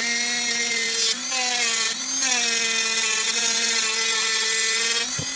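Dremel rotary tool running at high speed with a steady whine as its bit grinds the spiral yarn slot in the side of a beech bowl. The pitch dips briefly as the bit bites into the wood, about a second in, again at two seconds, and near the end.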